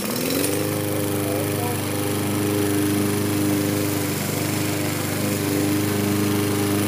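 Gas walk-behind push lawn mower engine catching on the pull-cord start and quickly rising to speed, then running steadily at an even pitch.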